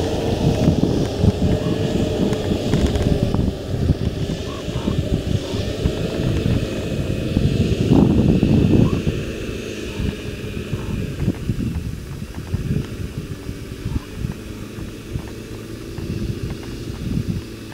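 Wind buffeting the microphone, strongest about eight seconds in and easing after that. Under it, a distant car engine is revving under heavy load as the car reverses out of boggy ground where it had been stuck.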